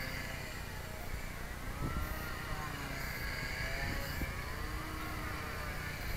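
Small electric motor and propeller of a J-Bug depron RC plane whining overhead, its pitch rising and falling. Wind rumbles on the microphone underneath.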